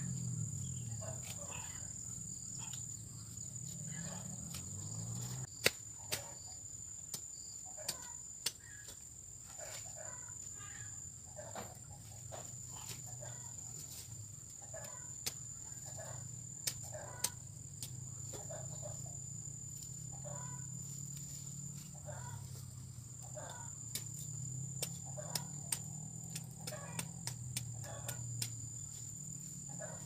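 A steady, high-pitched insect drone with scattered sharp clicks throughout; the clicks are the loudest sounds.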